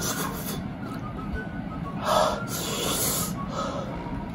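A man breathing heavily while eating raw string beans with chilli sauce: blowing out through pursed lips, with a loud sharp breath about two seconds in and a longer hissing breath after it.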